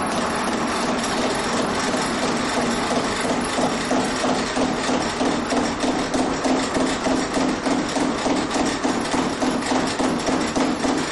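Homemade gravity flywheel-and-lever machine running: a regular, rapid clatter of mechanical knocks, about three a second, over a steady hum. The knocks grow more pronounced a few seconds in.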